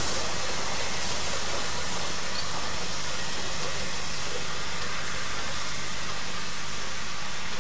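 Narrow-gauge Garratt steam locomotive giving off a steady hiss of steam escaping low down by its cylinders.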